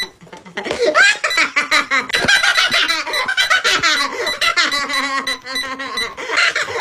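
A man's voice making rapid, high-pitched squawking and squealing noises, with no words.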